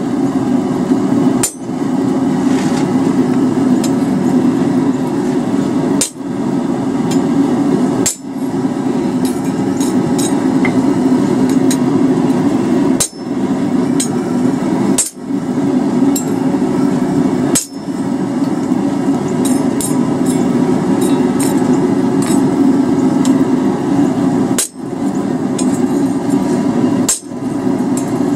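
Hammer blows on a handled top fuller, driving it into steel on an anvil to fuller a forged feather. The blows come in a dense, almost unbroken run, with short breaks every few seconds.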